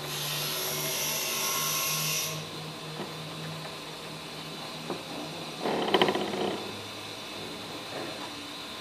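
Front strut mounts of a VAZ 2115 creaking and crunching as the wheels are turned, a loud grating burst lasting about a second around the middle: the SS20 mounts are worn and their rod and cup no longer rotate. A hiss with a low hum comes before it, stopping after about two seconds.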